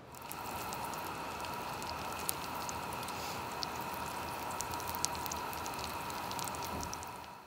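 Meat frying in hot oil in a pan on a propane camp stove: a steady sizzle with scattered crackling pops and a faint steady whistling tone over it, fading out near the end.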